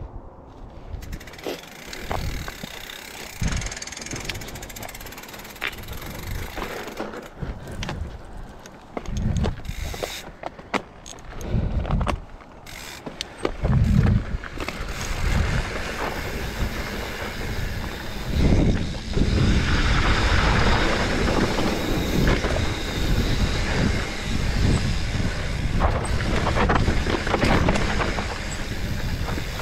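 Mountain bike riding down a loose dirt trail: tyres crunching over dirt and rocks, with the bike knocking and rattling over bumps. About two-thirds in, a steady rush of wind and tyre noise takes over as the bike gathers speed.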